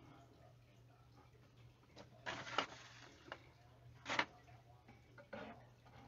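Faint handling noise from the recording phone being moved: a few short rustles and knocks between about two and five and a half seconds in, over a low steady hum.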